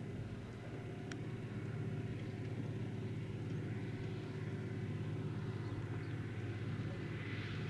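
Tractor engine running steadily at an even pitch, a little louder after the first couple of seconds.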